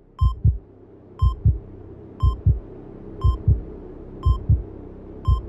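Heartbeat sound effect: a double lub-dub thump about once a second, six times, each beat marked by a short high heart-monitor beep. Beneath it a low steady drone builds in about a second in.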